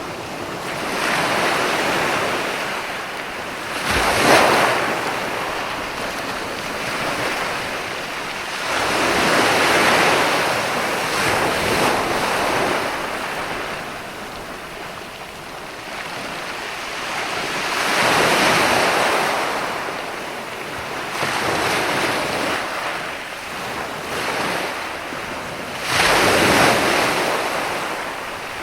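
Ocean surf: waves breaking and washing in, the rush swelling and fading every several seconds, with a sharper crash about four seconds in and another near the end.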